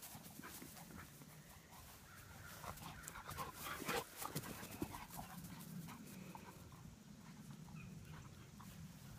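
Dog panting and running on grass, with a few louder scuffs about four seconds in as it passes close.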